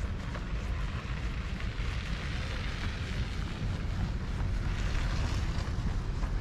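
Wind buffeting the microphone: a steady low rumble, with a rushing hiss that swells about halfway through and again near the end.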